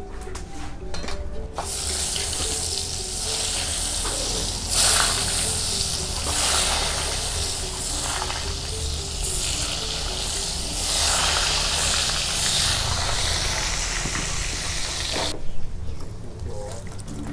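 Tofu deep-frying in bubbling hot oil in an aluminium wok: a steady sizzle that starts about a second and a half in and cuts off suddenly near the end, over quiet background music.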